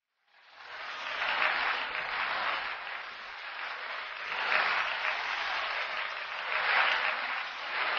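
Audience applauding, starting up about half a second in and swelling and easing in waves.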